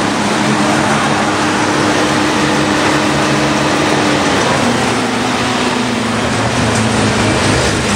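Rebuilt Mazda RX-7 12A rotary engine idling steadily during warm-up. About four seconds in, the idle steps down to a lower speed as the choke comes off by itself.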